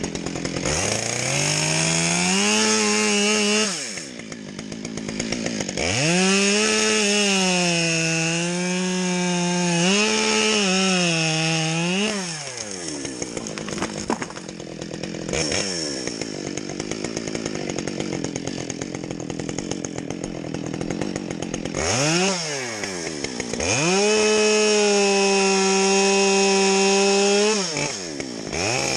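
Gas chainsaw run up to full throttle in several long bursts, its pitch sagging and recovering while it cuts wood, dropping back to idle between bursts.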